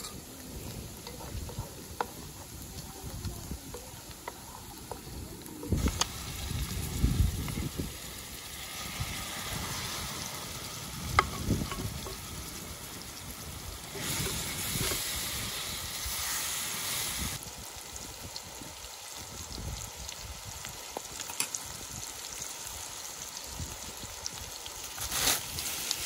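Food sizzling and frying in a pan, the sizzle growing louder about a quarter of the way in and loudest around the middle, with a few sharp clicks from cooking utensils.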